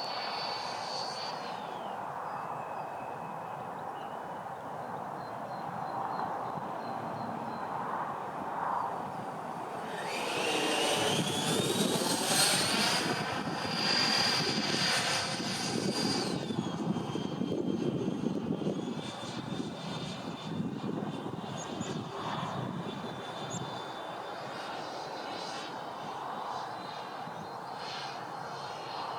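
Twin 80mm electric ducted fans of a Freewing MiG-29 model jet whining in flight. About ten seconds in, the whine rises in pitch and grows louder as the throttle is opened. It stays loud for several seconds, then drops back to a lower, steadier whine about sixteen seconds in.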